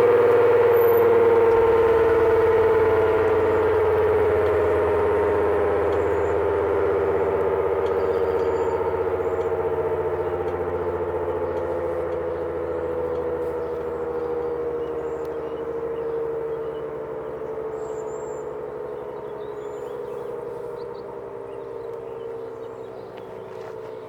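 ACA Allertor 125 outdoor warning siren winding down at the end of its alert signal: a loud chord of tones sliding slowly down in pitch and fading steadily away.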